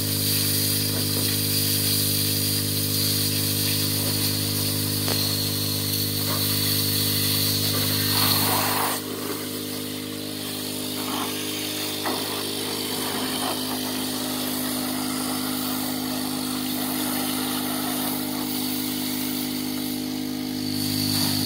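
A small engine running steadily at one speed, with the hiss of a garden hose jet spraying mud off a car's underside and wheels. The engine's lowest note drops away about nine seconds in and comes back near the end.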